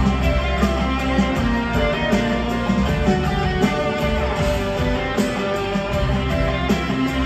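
Live rock band playing, electric guitars to the fore over keyboards and a steady drum beat.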